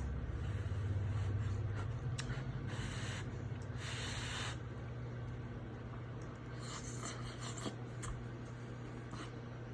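A fork scraping and rubbing in a food container while a serving of lo mein is picked up and eaten, with a few scrapes and light clicks over a steady low hum.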